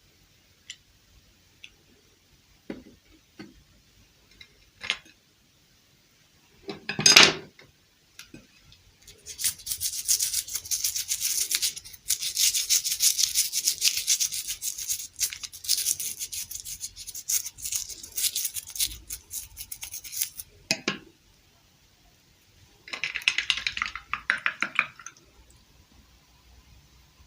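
Rapid back-and-forth scratching or rubbing on a small object, in a long spell and then a shorter one, with a few handling clicks and one louder knock before it.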